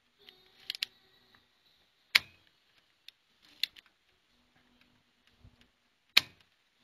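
Sharp clicks of a spring-loaded solder sucker (desoldering pump) as solder is drawn off the pins of an STK amplifier module on a circuit board. The two loudest snaps come about two seconds in and near the end, with lighter clicks between.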